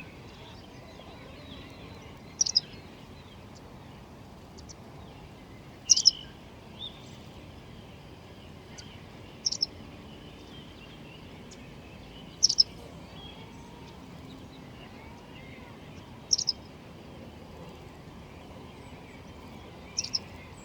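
A bird giving a short, high double-note call, repeated six times about every three to four seconds, over a steady background noise with fainter chirps from other birds.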